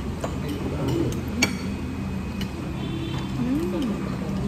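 Restaurant table sounds: a few clinks of dishes and cutlery, the loudest a sharp clink about a second and a half in, over a steady low hum of the dining room.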